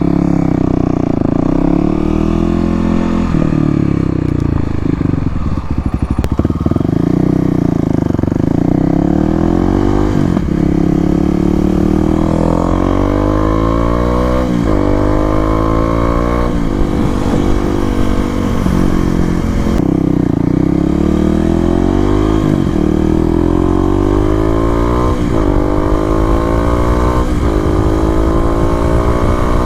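2018 Kawasaki KLX250's fuel-injected single-cylinder engine through an FMF Q4 exhaust, riding under varying throttle. In the second half it accelerates through the gears, the note climbing and dropping back at each upshift, every two to three seconds.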